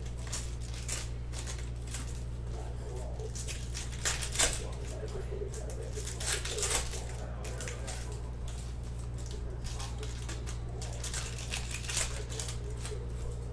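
Foil trading-card pack wrappers crinkling and tearing as they are handled and ripped open, in quick irregular crackles with a few louder rips. A steady low hum runs underneath.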